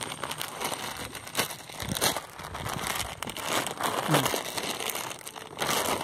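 Cast net rustling and crackling as hands gather and shake out its mesh, in a quick irregular run of crackles that is loudest near the end.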